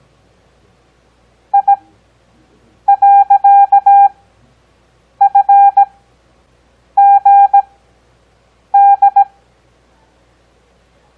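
Morse code practice tones: loud beeps at one steady pitch, sent at a 17 words-per-minute character speed with Farnsworth spacing at 6 words per minute. Each character's dots and dashes come quickly and are followed by a long pause; about five characters sound, one of them a long run of elements.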